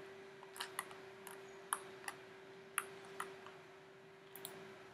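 Computer mouse clicking: about eight sharp clicks at irregular intervals, over a faint steady hum.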